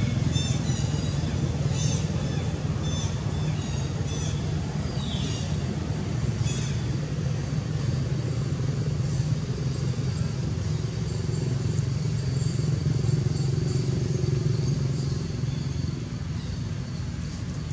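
A steady low rumble throughout, with a few short high chirps and one brief falling whistle in roughly the first seven seconds.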